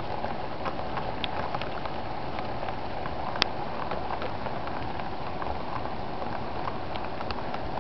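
HO-scale model freight cars rolling by on the track: a steady rolling rattle with small, irregular clicks of the wheels on the rails, and one sharper click about three and a half seconds in.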